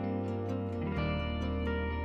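Soft instrumental background music, with held bass notes that change about a second in.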